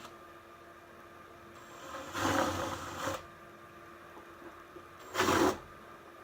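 Drill bit run in two short bursts to clear hardened Gorilla Glue foam out of a bolt hole, about a second near two seconds in and a shorter one near five seconds in.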